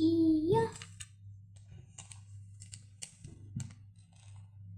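Small plastic clicks and light rattles of LEGO Technic pieces being handled and fitted, after a brief child's sung note at the start, over a steady low hum.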